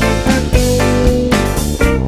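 Electric guitar and electric bass playing a jazz blues. The guitar holds one note for about a second in the middle, over a walking bass line.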